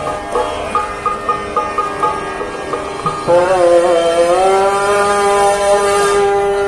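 Qawwali music: a harmonium plays a quick run of short repeated notes. About three seconds in, a long held note with a smoothly bending pitch comes in and steadies: a singer opening a phrase over the harmonium.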